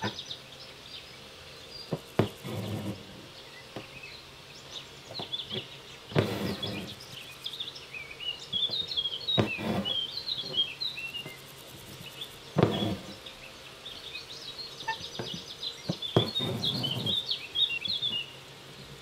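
Needle and embroidery floss drawn through linen fabric, a short rasping rub five times, about every three to four seconds. Small birds chirp in the background.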